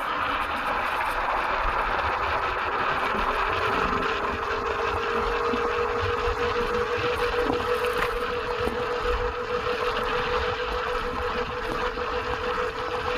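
Kaabo Mantis 8 dual-motor electric scooter running flat out in turbo, dual-motor mode: the hub motors' whine rises in pitch over the first few seconds and then holds steady near top speed, with wind rushing over the microphone.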